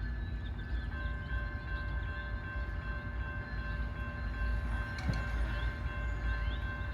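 MARC commuter train's diesel locomotive running with a steady low rumble and a steady high-pitched whine over it, with a single clank about five seconds in.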